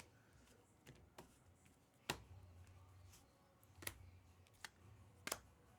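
Near silence broken by about half a dozen faint, short clicks and ticks of trading cards being handled and flipped through.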